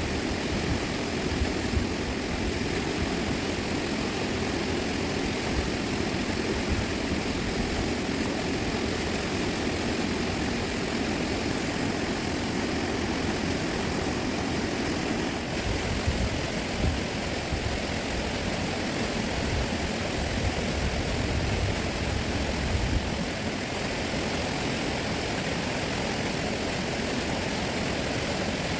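Steady rushing roar of a fast-flowing river.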